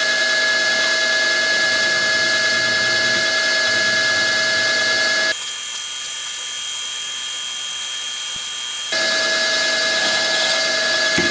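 Optimum MB4 drill-milling machine running steadily, with a whine of several fixed tones, as a 6 mm drill bores into a pillar-block casting. For a few seconds in the middle the whine changes to a different set of pitches, then returns to the first.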